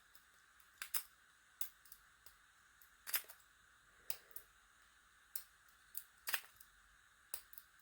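Faint, irregular metallic clicks of a lock pick and tension wrench working the pins of a Master Lock padlock, a dozen or so sharp ticks at uneven gaps over a steady hiss. The lock is resisting and has not yet opened.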